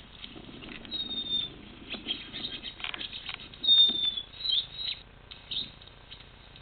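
Small birds chirping from a bird video played on a screen: a short high whistle about a second in and louder chirps near four seconds, among scattered scratchy ticks and rustling.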